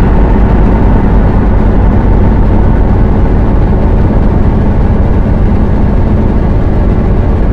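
Dark ambient electronic drone from a Maneco Labs Grone drone synth run through a Mutable Instruments Clouds granular processor. It is loud, dense and steady, heaviest in the low end, with a few faint held tones above.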